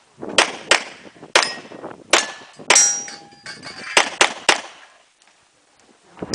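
A rapid string of about eight gunshots at uneven spacing, with steel targets clanging and ringing after some of the hits. The firing stops about three-quarters of the way in.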